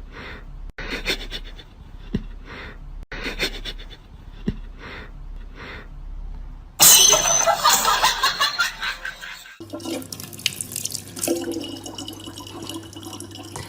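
Soft swishing noises about once a second, then a sudden loud burst of splashing water about seven seconds in, followed by water running steadily from a tap over a low hum.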